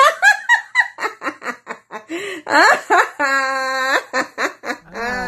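A woman laughing heartily in rapid ha-ha bursts, with one long held laughing note about three seconds in. This is deliberate laughter-yoga laughter.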